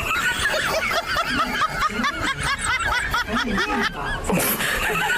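High-pitched snickering laughter: a rapid run of short rising-and-falling squealing giggles, steady throughout.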